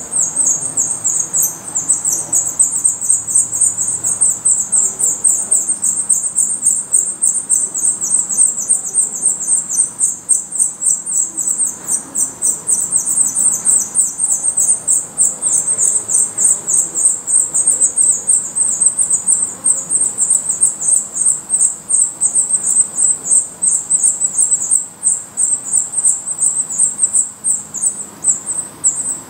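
Black redstart nestlings begging for food: a rapid, unbroken series of thin, high-pitched calls as the chicks gape at the adult at the nest.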